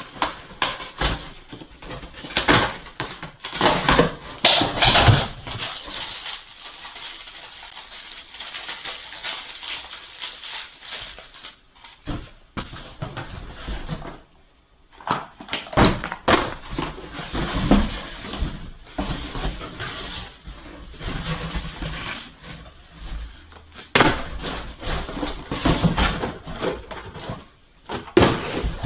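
Irregular knocks, clatters and rustles of hard objects and packaging being handled, with several louder knocks.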